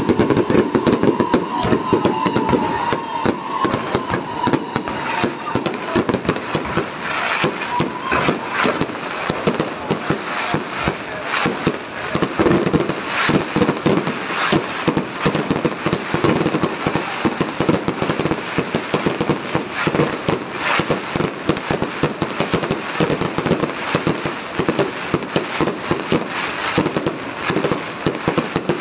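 Aerial fireworks display at full intensity: a rapid, unbroken barrage of shells bursting and crackling, bangs overlapping with no pause.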